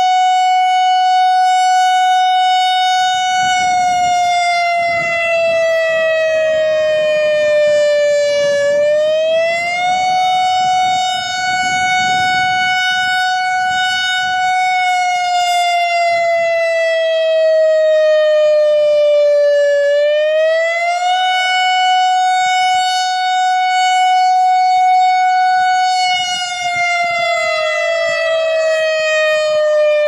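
American Signal I-Force electronic siren sounding a slow wail. A steady tone is held for a few seconds, slides down over about five seconds, then rises quickly back up, repeating about every eleven seconds.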